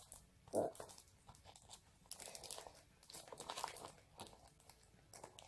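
Faint crinkling and crackling of a homemade paper-and-sellotape squishy as it is handled in the hands.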